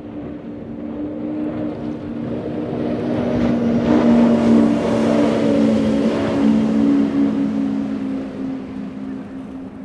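Twin outboard engines of a high-performance powerboat running at speed as the boat passes by, a steady drone that swells to its loudest about four to six seconds in and then fades, with the hiss of spray and hull on the water at its closest.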